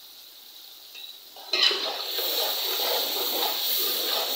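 A long metal spoon clinks against an aluminium pot and then stirs and scrapes yogurt into frying masala, starting about a second and a half in after a quiet start, with the oil sizzling under the scraping.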